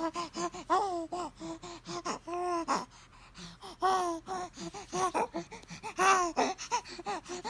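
A young baby vocalizing in a string of short, high-pitched coos and grunting sounds with breathy gasps between them. The loudest comes about six seconds in.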